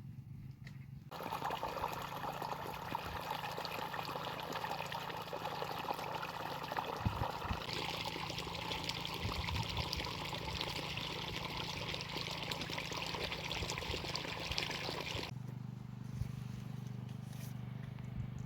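Liquid pouring in a steady stream, starting about a second in, growing brighter about halfway through and stopping abruptly near the end.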